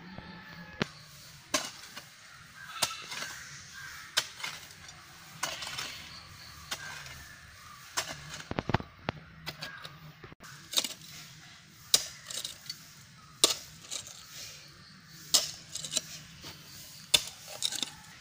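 A hoe's blade chopping into dry red soil and scraping it out while a planting hole is dug, about a dozen sharp strikes one to two seconds apart, each with a short gritty scrape of earth.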